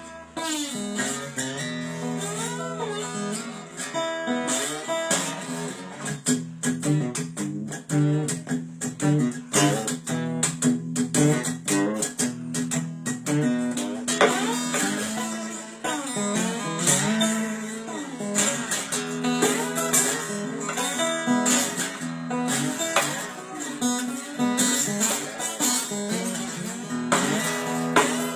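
Blues slide guitar playing: notes sliding up and down in pitch over steady low bass notes, with plucked and strummed chords.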